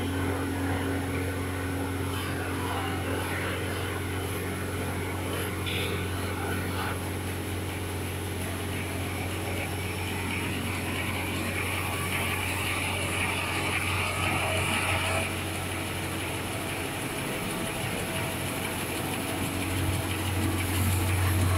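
Steady low hum of running factory machinery, with a brighter hiss joining for a few seconds about halfway through.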